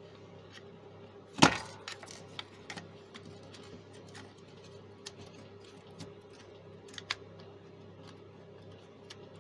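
Clicks and knocks of hard plastic and small parts being handled as the opened Bluetooth speaker's case, circuit board and wiring are fitted back together: one sharp loud knock about a second and a half in, then a few lighter scattered clicks.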